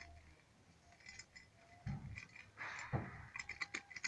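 Maize being shelled by twisting a cob through a manual tube maize sheller: scattered clicks and light rattles of kernels breaking off and falling. Two dull knocks come about two and three seconds in.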